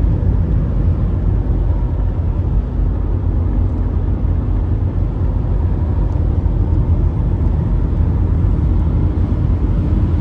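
Steady low rumble of road and engine noise inside a car's cabin cruising at motorway speed.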